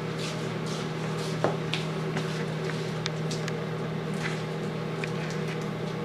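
A steady low hum with a few faint clicks and rustles from handling the plastic wrapper as ground beef is squeezed out of its chub package into a frying pan.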